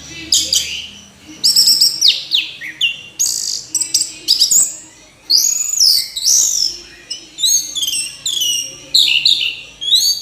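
Orange-headed thrush singing: a fast, varied run of high phrases with quick up-and-down glides, broken by short pauses.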